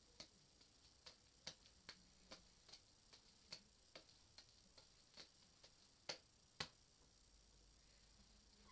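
Juggling balls smacking into the hands as three are juggled in a windmill pattern: short soft catches at about two and a half a second, the last two, about six seconds in, the loudest, after which the catches stop.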